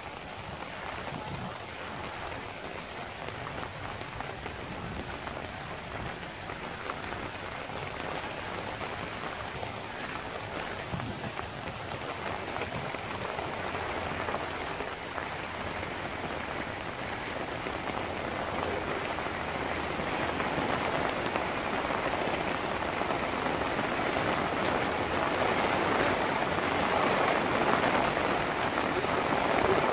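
Heavy rain pouring onto open water, a steady hiss that grows louder through the second half.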